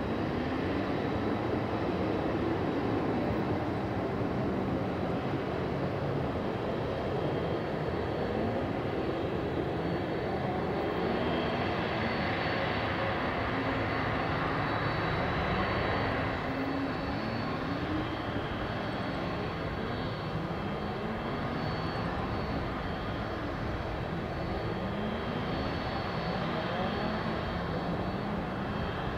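Boeing 767-300 jet engines running as the airliner rolls along a wet runway: a steady rumble and hiss with a thin high whine above it.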